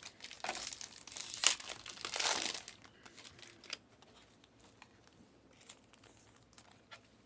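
Trading cards and their plastic packaging being handled: crinkling and rustling, with a sharp snap about a second and a half in, then only a few faint clicks.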